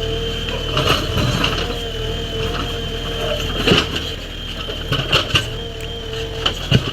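JCB 3DX backhoe loader's diesel engine running steadily under a high whine, with sharp knocks and scrapes several times as it works stone.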